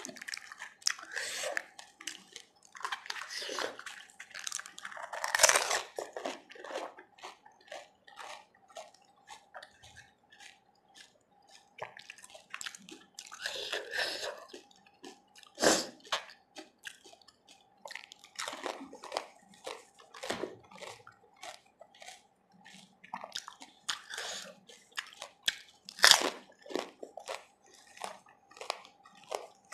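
Close-up eating of pani puri: crisp fried puri shells cracking and crunching with wet, watery chewing of the pani-filled puris. Two sharp, loud cracks stand out, about sixteen and twenty-six seconds in.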